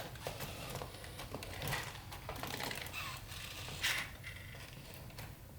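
Sony Aibo ERS-7 robot dog's joint servo motors clicking and whirring in small irregular movements, with a sharper click about four seconds in. The joints run noisily, a sign of wear in the servos.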